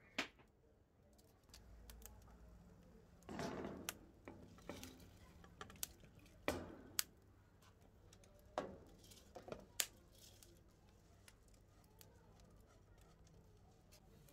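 Scattered sharp clinks and knocks of a bowl and saucepan being handled, with a short rustling, pouring stretch about three seconds in, as basmati rice is tipped into a saucepan of simmering water.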